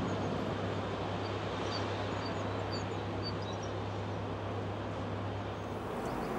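Steady low drone of an inland cargo push convoy's diesel engine, heard from above over a wash of outdoor noise, with a few short bird chirps. The drone drops away about a second before the end.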